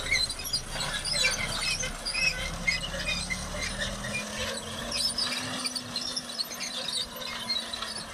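A TAFE 9502 tractor runs steadily, pulling a mounted six-row maize planter, while the planter's metal drive parts give out frequent short, high squeaks over the engine's low drone.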